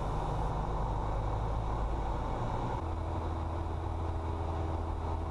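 Steady cabin drone of a Cessna 172SP's four-cylinder Lycoming engine and propeller during recovery from a spin. About three seconds in, the engine note shifts to a new steady pitch.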